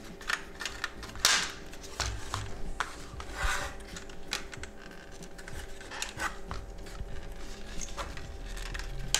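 Plastic clicking and rubbing as a VW Golf 5 instrument cluster is handled and its white plastic housing is worked loose from the circuit board's clips: scattered small clicks, the sharpest about a second in.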